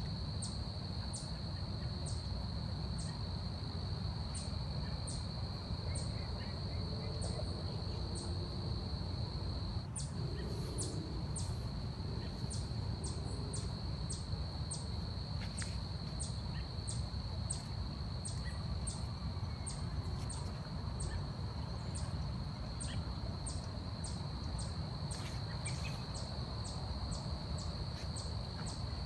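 Forest insects: one steady, high, unbroken trill that cuts out briefly about ten seconds in, with sharp high ticks about once or twice a second, over a low rumble of background noise.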